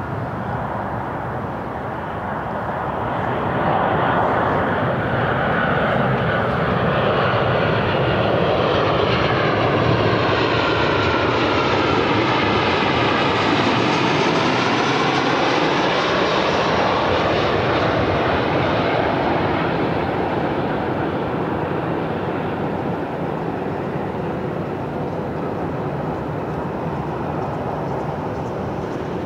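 Airplane passing by, its engine noise swelling about three seconds in, holding loud for some ten seconds with a whooshing tone that sweeps down and back up, then slowly fading.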